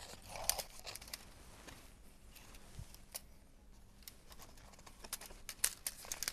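Faint, scattered ticks and scrapes of thin seizing wire being threaded through small drilled holes in a fibreglass backing disc and handled.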